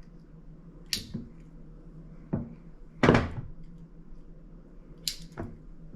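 Scattered knocks and short scraping clicks from a utility knife and heavy 2-gauge battery cable being handled while its insulation is scored and stripped, the loudest a knock about three seconds in, over a steady low hum.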